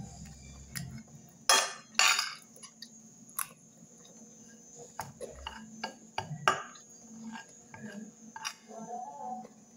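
Metal spoon scraping and clinking against a plate of food: a series of sharp strokes, the two loudest close together about a second and a half in.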